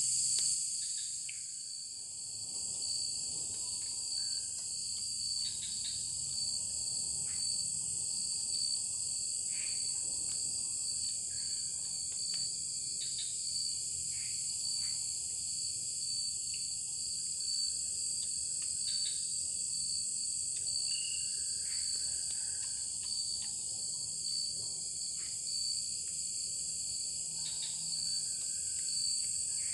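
Steady high-pitched chorus of forest insects, with scattered faint clicks and pops underneath.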